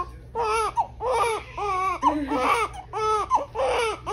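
Newborn baby crying: a string of short wails, about seven, one after another.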